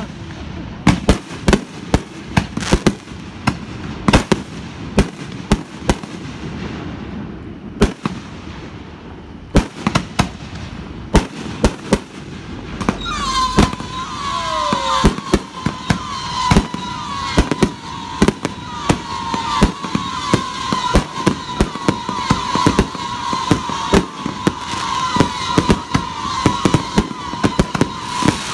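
Aerial fireworks going off overhead: a long run of sharp bangs and pops, with crackling and a steady high tone coming in about halfway through.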